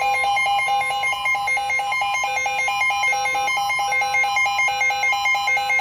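Emergency alert tone for a severe thunderstorm warning: a steady high electronic tone with fast, regular beeping layered over it.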